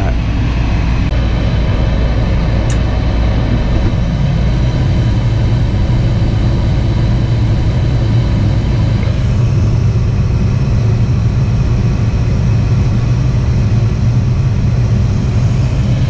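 Lennox G51 gas furnace running with its burners lit and its inducer motor turning: a loud, steady low drone. With the burner box removed the flame stays lit, which the technician takes as a sign of a plugged combustion air intake.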